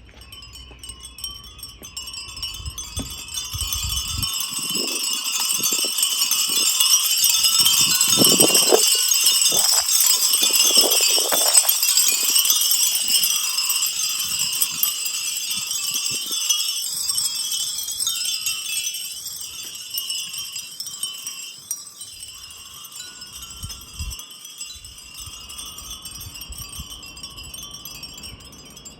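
Japanese furin wind bell ringing continuously, a dense high tinkling that swells to its loudest about a third of the way in and then slowly dies down.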